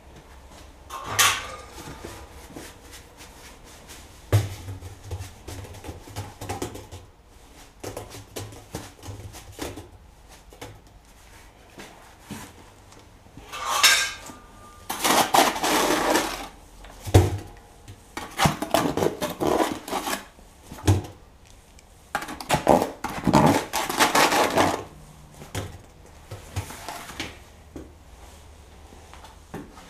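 Trowel scraping wet refractory mortar out of a metal bucket into a steel oil drum: scattered metal knocks and clatter, then several longer rasping scrapes in the second half.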